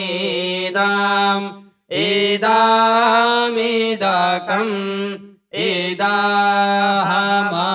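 A man chanting a Vedic mantra through a microphone in slow, drawn-out recitation, holding mostly one steady note with small rises and falls. He breaks off briefly for breath about two seconds in and again about five seconds in.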